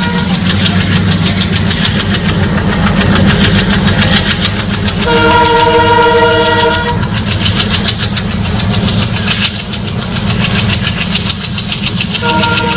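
ALCO WDM-3A diesel locomotive's four-stroke engine running under load, chugging steadily, with the wheels rattling over the track. The locomotive horn sounds for about two seconds around five seconds in and starts again near the end.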